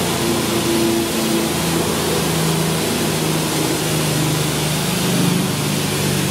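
Hammer mill crusher with its cyclone blower running: a steady loud mechanical drone with a low hum under a rushing noise.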